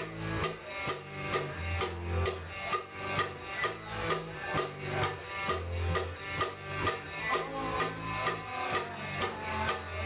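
Live rock band playing an instrumental passage: the drum kit keeps a steady beat of about two hits a second under electric guitar and low bass notes.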